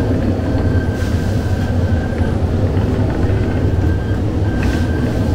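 Bakery dough-dividing machine running, a loud, steady mechanical rumble with a deep hum as it cuts and drops portions of dough. A faint high tone comes and goes over it.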